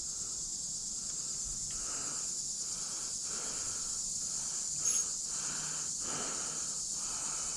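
Steady high-pitched drone of insects, with a soft uneven rustle underneath and a single small click about five seconds in.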